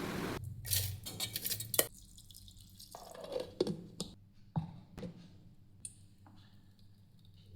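A steady noise cuts off about half a second in, followed by a series of light taps and clinks of kitchen utensils and dishes, with a few small wet, drip-like sounds among them.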